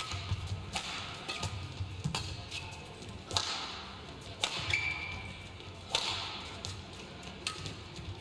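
Badminton rally: the shuttlecock is struck by the rackets about six times, each hit a sharp crack about a second and a half apart. Between the hits come short squeaks of court shoes and thuds of footfalls.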